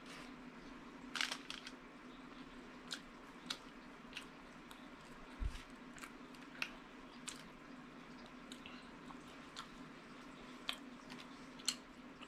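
A person chewing and eating close to the microphone: irregular soft clicks and smacks about once a second. There is one low thump about halfway through, and a faint steady hum underneath.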